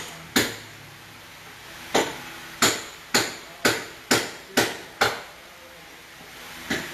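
Hammer blows on steel at a car's front suspension, knocking the lower control arm tight after a coilover install. One blow, a pause, then a run of seven blows about two a second, and another near the end.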